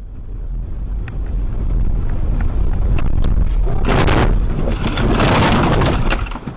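Vehicle road noise with a steady low rumble, scattered knocks and a long loud rush of noise in the second half. It cuts off suddenly near the end.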